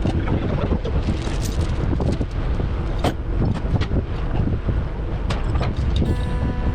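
Diesel semi-truck tractor running under load with its axles locked, a heavy low rumble with wind buffeting the microphone and scattered knocks and clunks from the rig.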